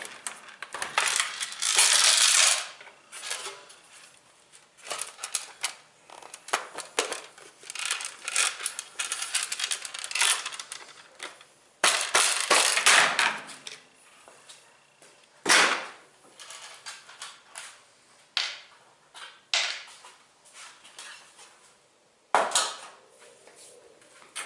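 Irregular clatter, knocks and scraping of metal and plastic washer parts being handled and pulled loose during disassembly, with a few louder bangs.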